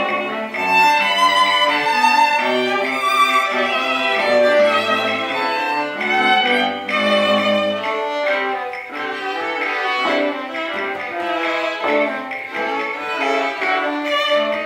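Small string ensemble of violins and cello playing a tango arrangement. The cello's low bass notes drop out about eight seconds in, leaving the higher string parts.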